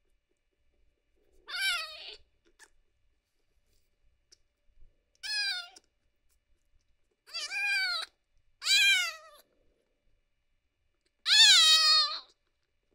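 Very young kitten mewing in high, thin cries, about five times, the last near the end the longest and loudest: the sleepy mewing she makes while gnawing on a hand.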